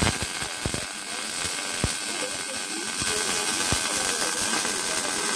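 MIG welder arc crackling and sizzling steadily as a weld bead is run on steel.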